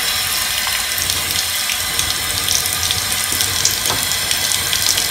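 Bathtub faucet running steadily, its stream splashing onto the metal drain stopper to rinse it off.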